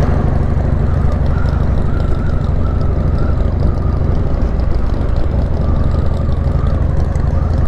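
Motorcycle engine running steadily while riding at low speed, with road and wind noise.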